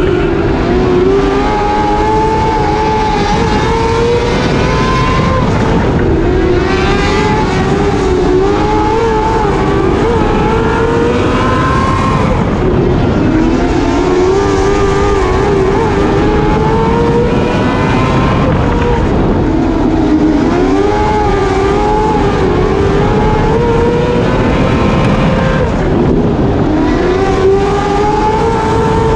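Winged dirt sprint car's V8 engine heard from onboard at racing speed, its pitch climbing on the straights and dropping as the driver backs off into the turns, several times over, with a steady rush of wind and road noise underneath.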